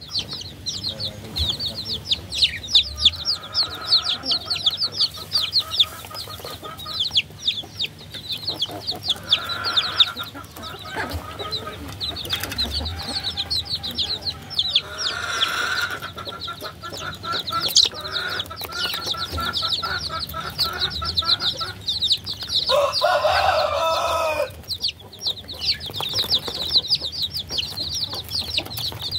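Many baby chicks peeping in a continuous chorus of quick, high, falling peeps, with some lower, rapid calls mixed in now and then.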